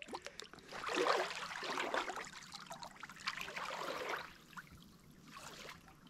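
Shallow seawater splashing and trickling as a person moves and wades through it, in small irregular splashes that thin out after about four seconds.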